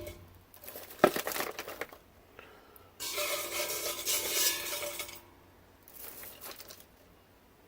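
Stripped copper motor-winding wire rustling and clinking against a metal pot as it is pushed down into it, in three bouts, the middle one the longest and loudest, with a sharp click about a second in.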